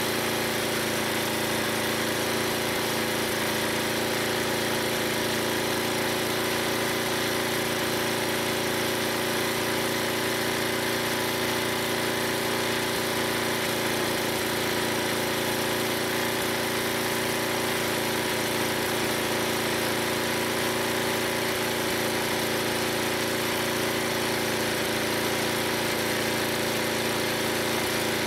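Old 11 HP Briggs & Stratton gas engine running steadily at constant speed, belt-driving a log splitter.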